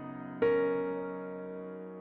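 Background keyboard music, soft piano-like chords: a new chord is struck about half a second in and left to ring and fade.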